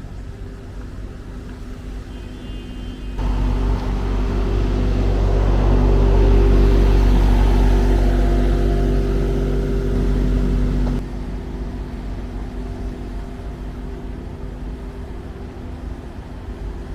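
A motor vehicle's engine running with a steady low hum. About three seconds in it turns much louder, swells for a few seconds, eases slightly, then drops back abruptly.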